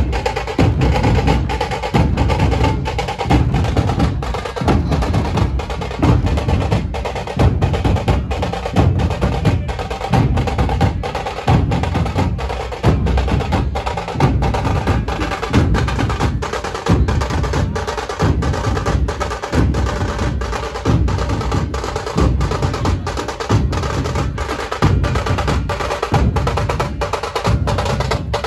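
Dhol-tasha ensemble playing: many large barrel dhols beaten with sticks in a heavy, evenly driven rhythm, with the sharp cracks of tasha drums over them.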